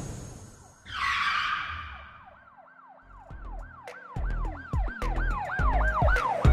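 Intro sound effects: a whoosh about a second in, then a siren wail whose pitch rises and falls about three times a second, over deep bass hits that begin about three seconds in.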